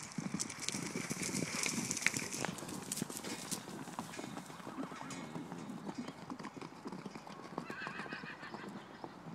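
Hoofbeats of several horses galloping loose on dry dirt, a dense run of thuds loudest in the first few seconds, with a horse whinnying briefly near the end.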